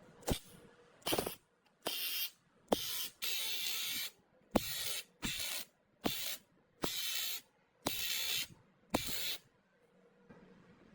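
A spray nozzle hissing in about eleven short bursts, each starting with a click and lasting from a quarter second to about a second.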